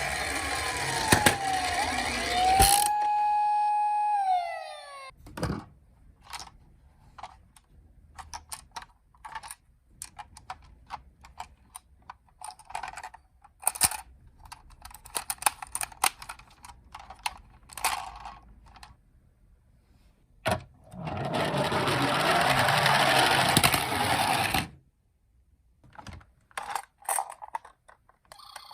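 A toy ambulance minicar's electronic siren wails, then winds down with a falling pitch and stops about five seconds in. Scattered light clicks and taps follow, and later about three seconds of steady rolling noise from the minicar's tyres running down a slope.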